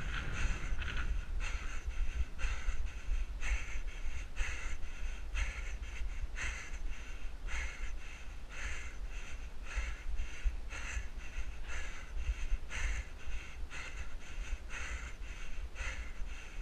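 A runner panting hard in a steady rhythm, about two breaths a second, with a low rumble of wind on the microphone.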